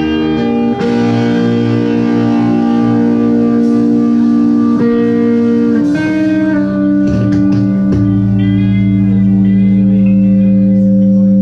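Live hardcore punk band's electric guitar and bass guitar playing long, ringing held chords that change a handful of times, with few drum hits. In the last few seconds a low note holds under wavering high guitar notes.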